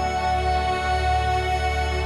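Background music: soft, sustained instrumental chords over a held bass note.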